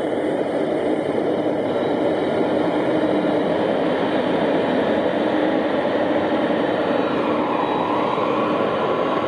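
Boeing 767 twin jet engines running at low taxi thrust, a steady whine and rush as the airliner turns onto the runway. A higher whine strengthens near the end.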